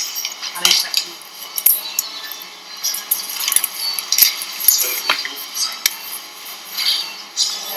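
Steel surgical instruments clicking and clinking against each other in quick, irregular taps: needle holder, forceps and retractors being handled while the anterior rectus sheath is sutured closed.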